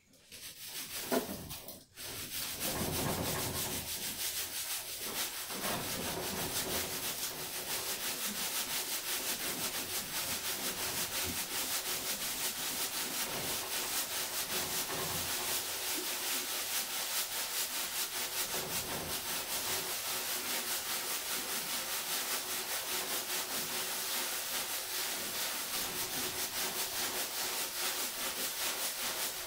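Sand being sifted in a hanging sieve shaken back and forth: a steady gritty rasp of grains scraping over the screen, starting about two seconds in.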